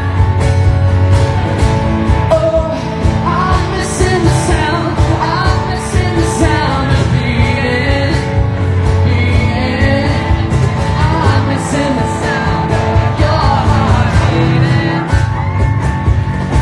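Pop-rock song played by a live band with a steady drumbeat, a voice singing sliding melodic runs over it.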